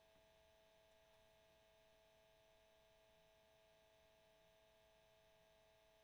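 Cassette tape motor running, very faint: a steady hum made of a couple of fixed tones over a light hiss.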